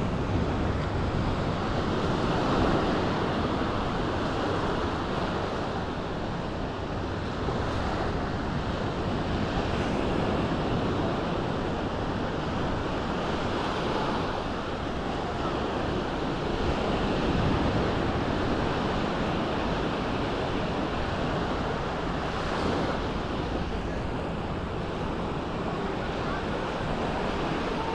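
Sea waves washing onto the beach, the surf swelling and easing every several seconds, with wind noise on the microphone.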